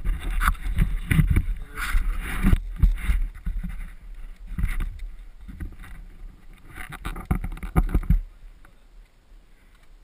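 Downhill mountain bike riding fast over a bumpy dirt trail, heard from a rider-mounted camera: a steady rumble of tyres and rattling bike, with many sharp knocks over the bumps. It drops to a much quieter roll about eight seconds in.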